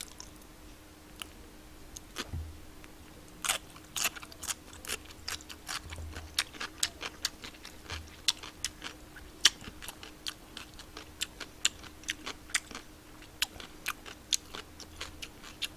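Close-up crunching of pickled radish (danmuji) being chewed, with sharp crunches at an irregular two or three a second, denser after the first few seconds. A faint steady hum runs underneath.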